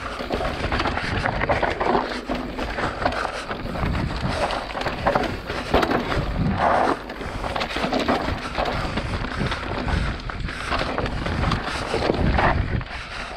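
Mountain bike rolling fast down a rocky, loose trail: tyres crunching over stones, with irregular knocks and rattles of the bike as it hits rocks.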